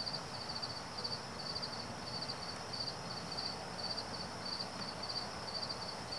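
Cricket chirping steadily: short, high chirps of a few quick pulses each, about two to three a second, over a faint steady hiss.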